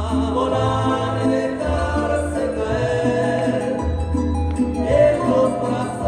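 Mexican folk dance music with singing over a bass line that moves between notes, played for a ballet folklórico dance.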